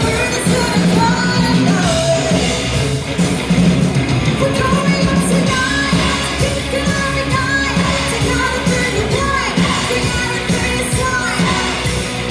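Live rock band playing loudly with a woman singing over electric guitars, bass and drums.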